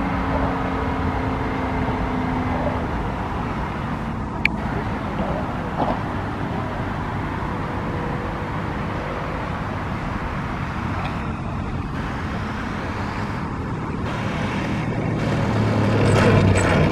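Single-cylinder two-stroke gasoline engine (MVVS 58) of a large radio-controlled aerobatic plane running at low power in flight, its pitch falling in the first few seconds. Near the end it grows louder as the plane lands and rolls on the runway.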